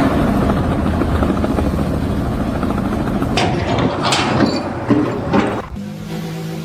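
A loud motor running with a rapid, even pulse, which stops abruptly near the end and gives way to a steadier, lower engine hum.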